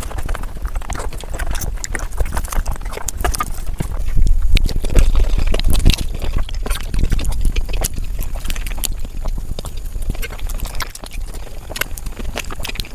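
Sped-up eating sounds of mutton fat curry: a fast, dense run of chewing and lip-smacking clicks over a heavy low rumble, loudest around the middle.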